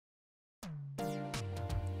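Silence, then about half a second in a quick downward sweep and synthesizer background music with held notes comes in.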